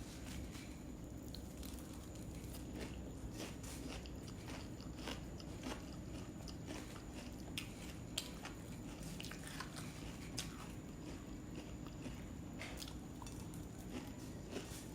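A person chewing puffed rice (muri) with jackfruit, with many small irregular crunches and mouth clicks over a low steady hum.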